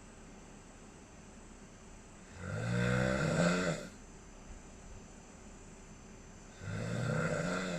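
Snoring: two long, buzzing snores about four seconds apart, the first about two and a half seconds in and the second starting near the end, with quiet breathing pauses between them.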